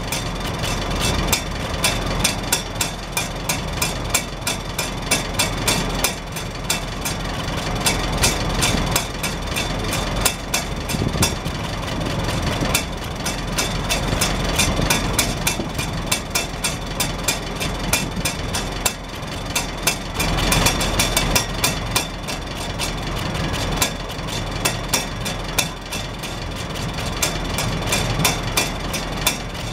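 Farmall Super H four-cylinder engine idling steadily, with the hinged rain cap on its exhaust stack tapping in a fast, even rattle over the low rumble.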